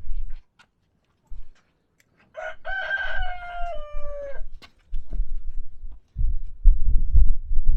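A rooster crows once, starting about two and a half seconds in: a two-second call that drops in pitch at the end. Bursts of low rumble follow through the second half, louder than the crow.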